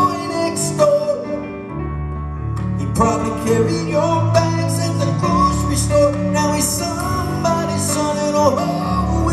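Live rock band playing an instrumental passage: a guitar melody with bending notes over sustained bass and drums, with cymbal hits every second or so.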